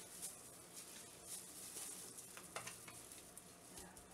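Faint wet squishing and plastic crinkling of gloved hands rubbing a butter and spice seasoning into a raw whole chicken, with a few soft ticks.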